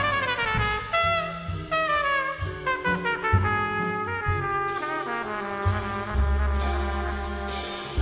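Jazz orchestra playing, with a brass section of trumpets and trombones leading over long low bass notes.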